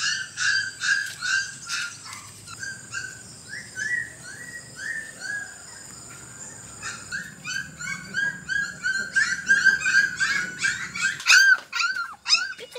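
An animal's rapid high-pitched whimpering cries, several a second, turning into longer swooping cries near the end.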